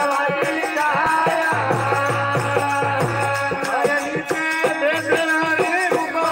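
Devotional bhajan singing: a man's voice at the microphone over dholak drumming, with rattling hand percussion keeping time and a held drone note underneath.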